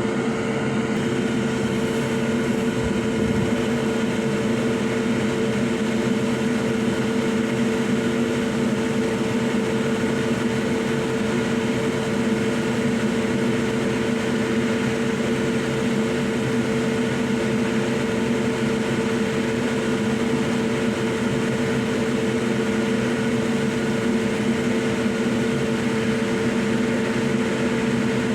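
Steady hum of a small electric motor, like a fan or blower, with a few constant tones over a whirring haze.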